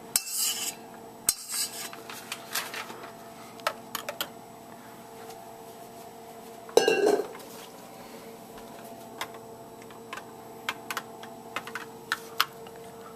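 Metal spoon stirring and scraping around a glass bowl of egg-and-cream custard set over a saucepan as a double boiler, with scattered light clinks against the glass. There is one louder clatter about seven seconds in, over a faint steady hum.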